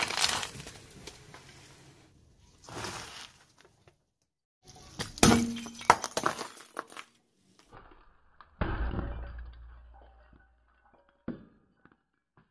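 Brittle, glassy objects cracking and shattering under a rolling car tyre: several separate crunches with tinkling shards, the loudest a little past the middle, then a duller thump with a low rumble that fades away.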